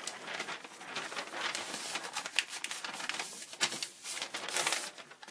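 A sheet of paper rustling and crinkling as it is picked up and handled, with small sharp ticks and taps among the rustle.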